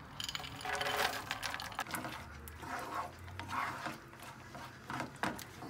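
Coarsely chopped hazelnuts tipped from a bowl into a pan of melted sugar and butter: a quick, irregular run of clicks and clatters as the nuts land and are moved about in the pan.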